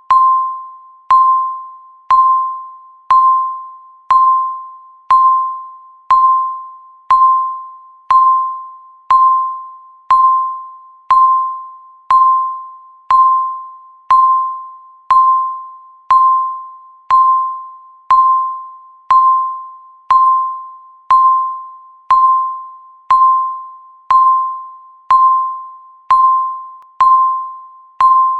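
Countdown timer beep: a single electronic tone sounding once a second, about 28 times, each starting sharply and fading away before the next.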